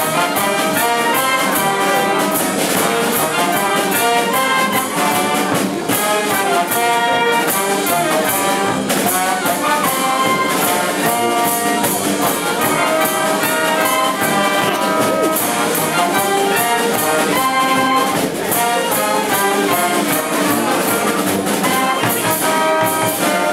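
Band and bugles playing live: brass and woodwind with bugles, loud and steady, notes changing throughout.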